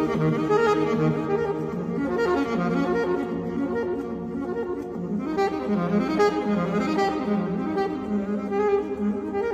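Instrumental background music: a melody moving over steady held lower notes.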